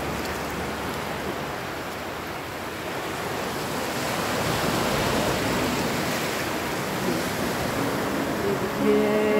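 Sea surf washing up a sandy beach, a steady rushing wash of small breaking waves that grows louder about halfway through.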